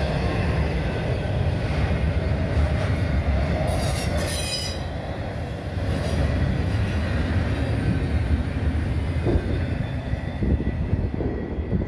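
Double-stack intermodal freight cars rolling past with a steady rumble of steel wheels on rail, and a brief high-pitched wheel squeal about four seconds in. A few short thumps come near the end.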